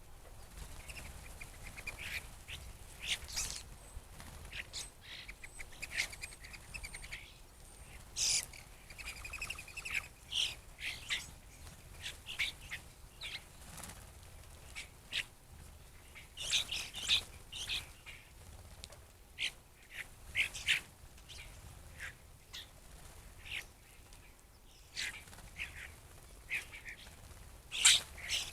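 A flock of blackbirds calling while they feed: many short chips, squeaks and harsh calls come irregularly, with a few brief warbling runs.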